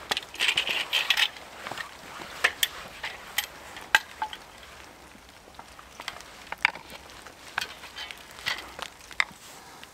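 Wooden parts of a buck saw knocking and clicking together as its frame is fitted and assembled by hand, with a burst of rustling near the start and irregular sharp clicks after.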